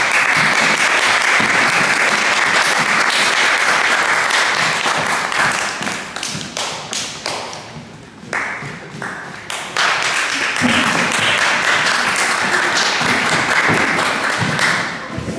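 Audience applauding: a long round of clapping that thins to scattered claps about six seconds in, then swells into a second round a few seconds later and fades near the end.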